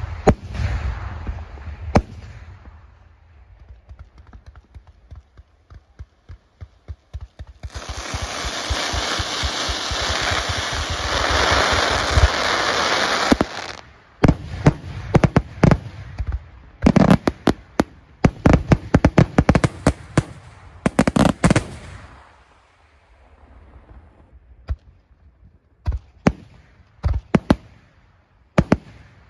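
Aerial fireworks display. A shell bursts with a bang at the start and another about two seconds in, then a patter of small crackling pops follows. From about eight to thirteen seconds there is a continuous dense hiss, then a rapid volley of sharp bangs. Scattered, quieter reports come near the end.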